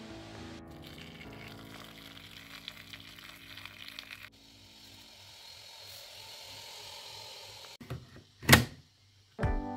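Water pouring into a stainless pressure cooker of chickpeas and meat, a steady hiss, with background music that fades out about halfway. Near the end, one sharp loud clack as the pressure cooker lid is put on and closed.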